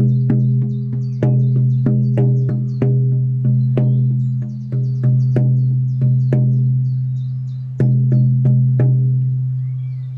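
16-inch shamanic frame drum, a fallow deerskin head on an ash frame, beaten with a firm beater in a steady pulse of about two to three strokes a second, each stroke leaving a deep ringing tone that carries through to the next. The beating stops about nine seconds in and the ring dies away.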